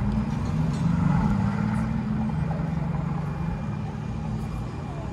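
City street traffic: a passing motor vehicle's low engine hum, loudest about a second in and then fading, over general street noise.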